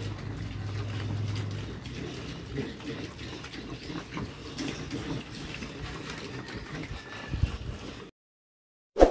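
Weaned piglets eating at a trough: irregular munching and snuffling at the feed. It cuts off suddenly about eight seconds in, and a short loud sound-effect pop comes right at the end.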